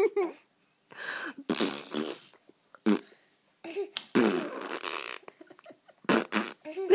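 Fart noises made by a person's mouth to amuse a baby: two long, buzzing raspberries, about a second and a half in and again about four seconds in.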